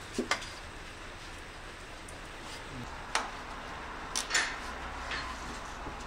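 Sharp metallic clicks and knocks from a Honda S2000's rear driveshaft and exhaust being rocked by hand: a quick pair near the start, then several more in the second half. The short 'kon' knock is driveline play, which the mechanic reckons, if anything, points to driveshaft joints worn after 250,000 km.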